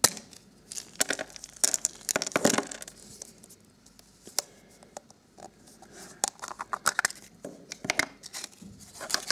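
Wrapping of a Hello Kitty surprise egg being torn and crinkled by hand, in irregular bursts of crackling and small clicks with short pauses between them.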